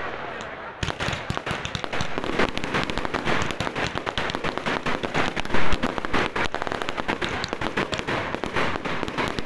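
Fireworks display: a dense run of rapid pops and crackles from bursting aerial shells and crackling stars, picking up about a second in, with a louder bang about five and a half seconds in.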